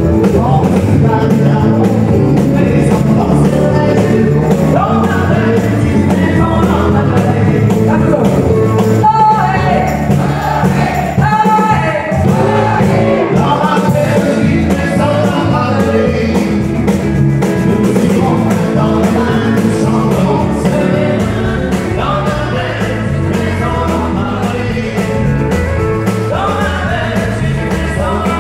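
Live country music: a woman and a man singing into microphones over acoustic guitar and a full band.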